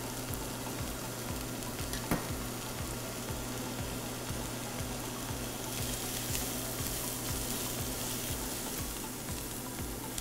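Diced onions sizzling as they sauté in hot olive oil in a stainless steel pan, stirred with a silicone spatula. One sharp knock about two seconds in.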